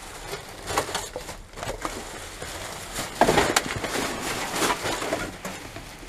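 Plastic rubbish bags and packaging rustling and crinkling as gloved hands dig through a dumpster's contents, irregular and uneven, with a louder scrunch about three seconds in.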